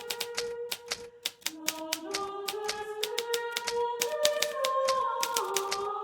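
Hermes Baby portable typewriter being typed on, rapid key strikes clacking several times a second with a brief lull about a second in. Soft background music with slow held notes runs underneath.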